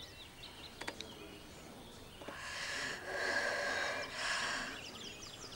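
A woman smoking a cigarette takes a long, breathy breath, a hiss of a couple of seconds that swells and fades in the middle.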